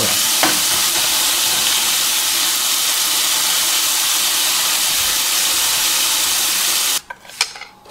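Sliced bell peppers, onions and mushrooms sizzling steadily in hot oil in a frying pan. The sizzle cuts off suddenly near the end, and a few light knocks follow.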